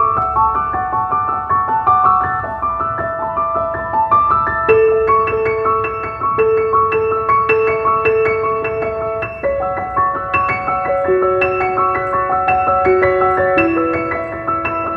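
Background piano music: a steady melody of single held notes over a soft accompaniment.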